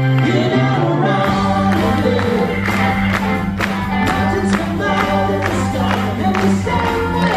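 Progressive rock band playing live with a sung lead vocal over keyboards, and a tambourine shaken along. About a second in, the bass and drums come in fully, with steady rhythmic hits.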